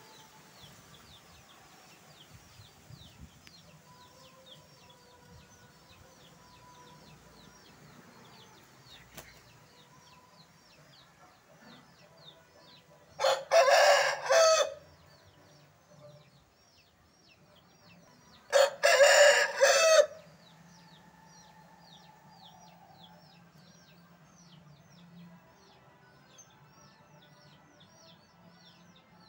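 Rooster crowing twice, each crow lasting about a second and a half, about five seconds apart. A rapid series of faint high chirps runs underneath.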